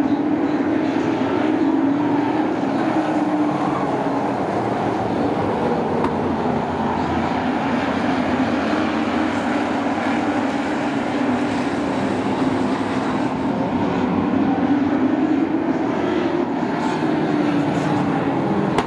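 A field of short-track race trucks running laps on the oval, their engines a continuous drone that wavers in pitch and swells and fades slightly as the pack goes by.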